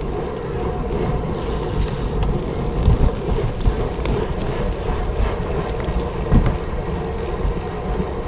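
Wind buffeting the microphone, a fluctuating low rumble, with a steady hum underneath.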